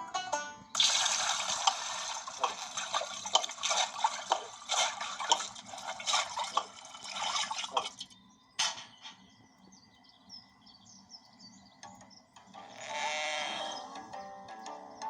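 Several seconds of gushing, splashing water, then a single sharp crack, a quiet spell, and a sheep bleating near the end.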